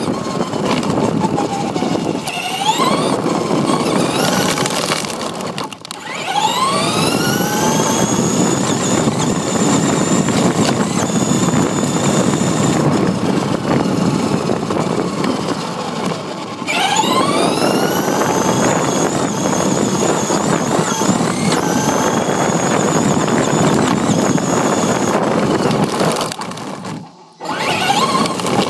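RC car's motor and drivetrain whining as the car speeds up twice, the pitch rising and then holding high, over a steady rumble of its tyres on rough pavement, heard from a camera mounted on the car. The sound cuts out briefly near the end.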